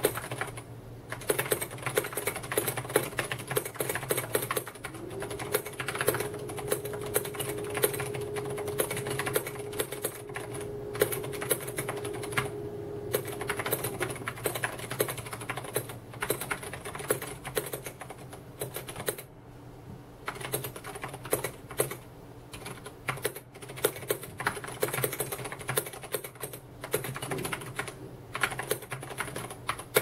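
Continuous touch-typing on an Ajazz AK510 mechanical keyboard with Ajazz's own tactile brown-type switches: a fast, steady run of keystroke clicks, pausing briefly about two-thirds of the way through.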